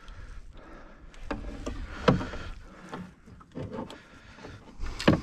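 Knocks and clatter against a boat's hull and fittings as a netted pike is brought in and handled, with a sharp knock about two seconds in and another near the end.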